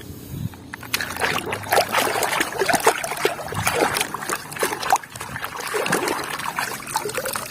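Water sloshing and splashing as a plastic toy bus is scrubbed and rinsed by hand, with many small irregular splashes and knocks.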